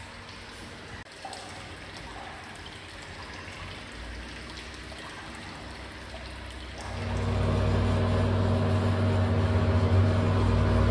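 Water trickling faintly from a stone spout into a bath. About seven seconds in, a much louder steady mechanical hum with a hiss starts suddenly and carries on.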